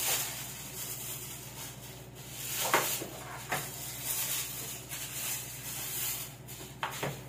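A plastic packaging bag rustling and crinkling as it is pulled open by hand and a boxed phone is slid out, over a steady low hum.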